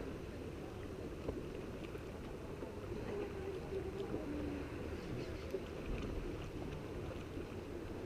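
Steady wash of sea water lapping against a concrete pier, with low rumbling wind noise on the microphone and a couple of faint clicks.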